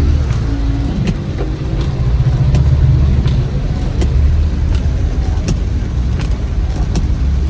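A car's engine running with a steady low rumble, heard from inside the car, with scattered sharp ticks.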